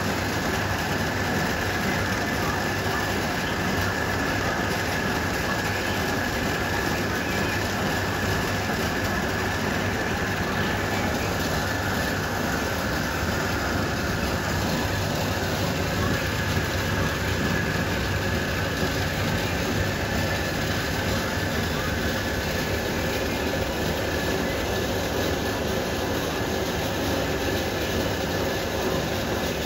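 A 5-litre wet grinder running steadily: its electric motor and turning drum make an even mechanical rumble with a constant high whine.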